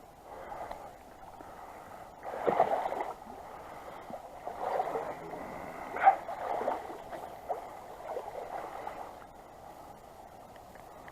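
Creek water running steadily, with several irregular louder splashes, the strongest about two and a half seconds and six seconds in.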